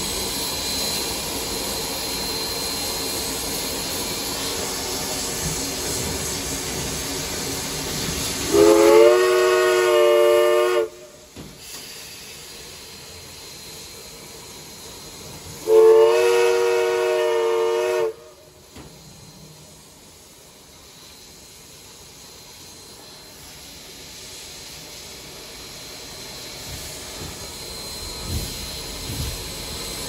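Southern Railway 4501 steam locomotive heard from the cab: a steady hiss of steam, then two long blasts on its steam whistle, several tones sounding together, each about two seconds and a few seconds apart. Two long blasts is the signal that the train is about to move forward. After the blasts the steam hiss is quieter.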